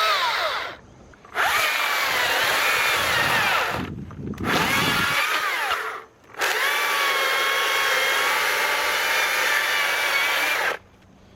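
STIHL battery-powered electric chainsaw whining at high speed in three spells, released between them. Its pitch sags as the chain bites into the wood, and the motor stops shortly before the end.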